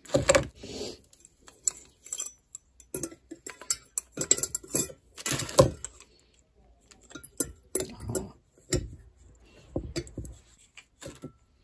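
Stainless steel tea infuser and lid clinking and knocking against a glass teapot as the parts are handled: scattered short clinks and taps, with a brief quiet pause a little past halfway.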